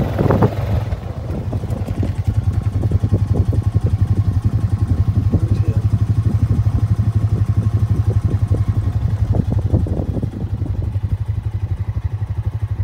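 Vehicle engine running at a steady pace: a low drone with a fast, even pulse.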